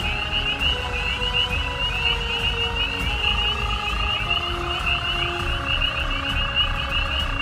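A pond chorus of frogs trilling nonstop, a fast pulsing high trill that never lets up. A lower, steadier trill joins about three seconds in.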